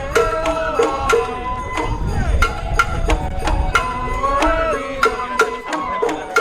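Live Japanese festival hayashi: a bamboo flute melody that slides between notes over steady drum strikes, about two or three a second.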